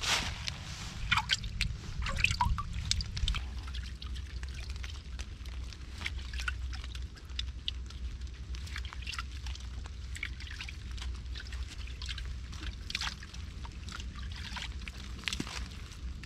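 Irregular crackling, clicking and rustling of hands rummaging inside a hollow at the foot of a tree trunk. It is busiest at the start and again near the end, over a low steady rumble.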